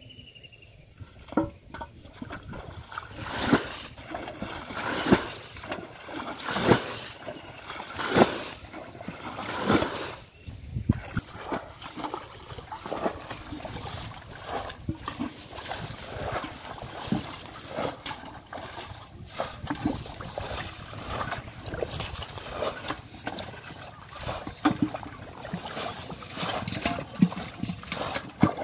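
Muddy water being bailed out of a shallow pool with an aluminium basin: repeated splashes of thrown water with sloshing and dripping between. The splashes are loudest and about a second and a half apart in the first ten seconds, then smaller and quicker.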